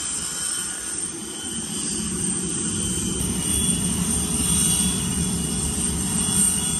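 Steady rushing drone with a faint high whine over it, the sound of a jet turbine running on an airport ramp.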